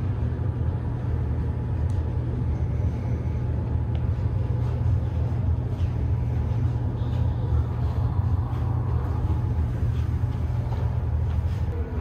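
Steady low rumble of indoor room ambience, with no distinct events.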